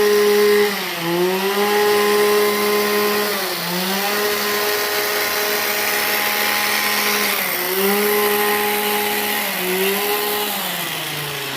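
Small petrol engine of a Stihl pruning tool running at high revs while cutting the shrub. It eases off briefly about four times and drops toward idle near the end.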